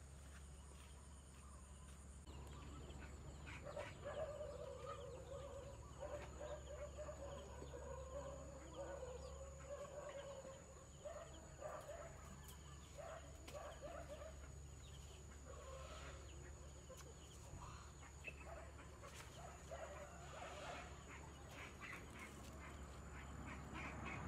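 Domestic fowl calling: a run of low, wavering calls for several seconds, then scattered shorter calls.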